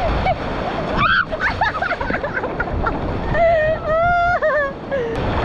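Surf and wind noise on the microphone, with people shouting and cheering over it, including one long, drawn-out shout about three and a half seconds in.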